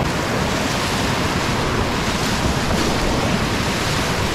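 River whitewater rushing and splashing steadily around a kayak on a standing wave, with rumble from water and wind on the camera's microphone.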